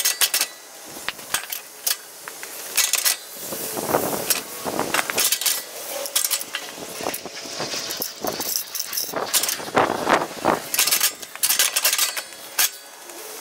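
Steel snowplow mount frame and its safety chain clanking and rattling as the frame is manhandled into a truck's front hitch receiver: irregular metal clanks and clinks, some with a short ring.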